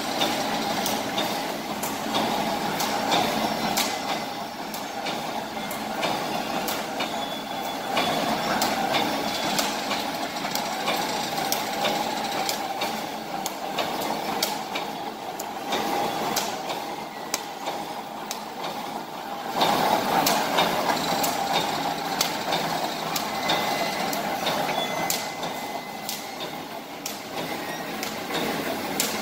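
Fully automatic wire mesh welding machine running: a steady industrial hum with sharp clacks repeating at roughly one a second as the welding head cycles and the mesh is pulled through.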